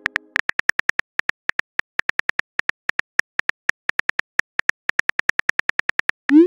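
Simulated phone keyboard clicks, one per key, quick and even at about six a second, as a text message is typed. Just before the end a short rising whoosh as the message is sent.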